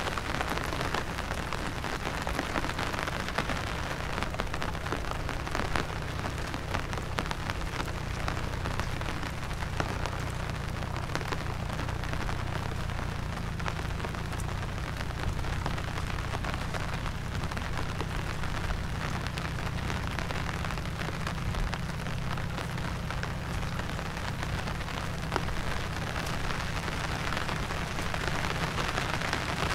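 Steady monsoon rain falling, a continuous hiss of rain with many separate drops pattering through it. A steady low rumble runs underneath.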